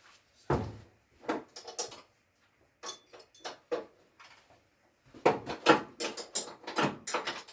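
Metal parts knocking and clanking as they are worked loose and handled: a few scattered knocks, then a quick run of knocks from about five seconds in.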